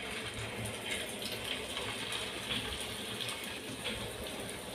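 Raw chicken seekh kebabs sizzling as they are laid one by one into hot oil in a frying pan: a steady frying hiss with faint small crackles.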